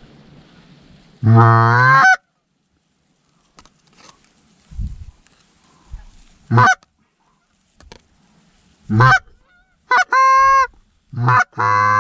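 Canada goose honks and clucks, loud and close: one long call rising in pitch, then a run of short honks that break from a low note to a high one. Typical of hunters working goose calls to bring a flock in.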